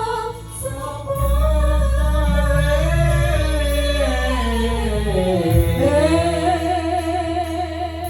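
A singer holding long, wavering, gliding notes over live band accompaniment, with a deep bass that comes in about a second in.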